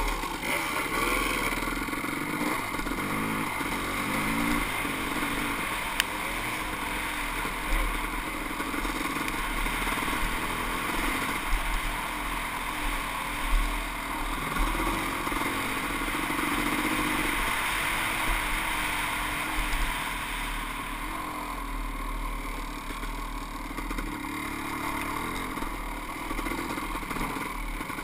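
Kawasaki KX500 two-stroke single-cylinder dirt bike engine running under the rider, revving up and down while riding a rough trail, with wind noise and a few short knocks from bumps.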